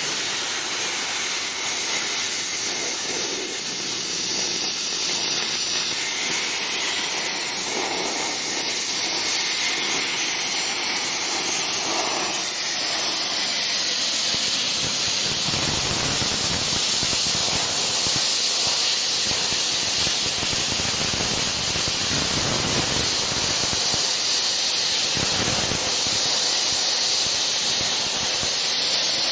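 Tân Thành CUT 100F inverter plasma cutter's torch cutting metal: a loud, steady hiss of the air-plasma arc.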